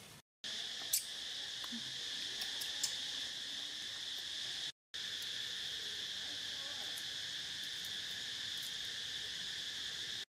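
A steady, high-pitched insect chorus, an unbroken chirring drone. It drops out for a split second near the start, in the middle and near the end, with a couple of faint clicks in the first few seconds.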